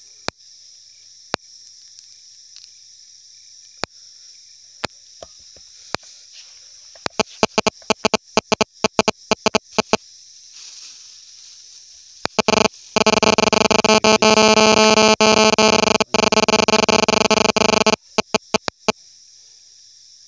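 A steady high insect chorus with scattered sharp clicks and a quick run of clicks in the middle, then a loud harsh buzzing noise lasting about five seconds near the end.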